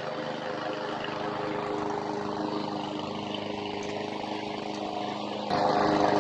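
PowerSmart self-propelled gas lawn mower's 170 cc overhead-valve engine running steadily, likely while mowing grass; about five and a half seconds in it gets abruptly louder.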